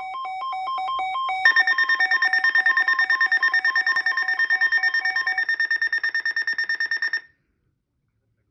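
Electronic emergency alert tone for a flood warning. It starts as a rapidly pulsing two-note beep that grows louder, then about a second and a half in switches to a louder, harsher buzzing tone pulsing about nine times a second. That tone cuts off sharply a second or so before the end.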